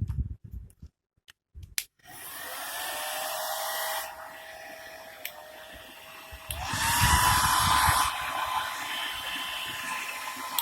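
Philips HP8126 hair dryer switched on about two seconds in: a rush of air with a motor whine that rises in pitch as it spins up. About halfway through it steps up to a louder, higher-pitched whine, then settles and cuts off near the end.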